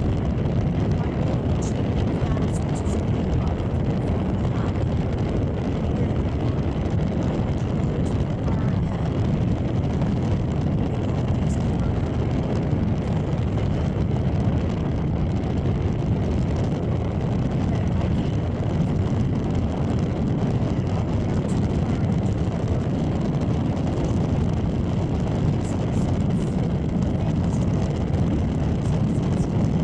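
Steady car cabin noise while driving: engine and tyre rumble from a car moving along a paved road.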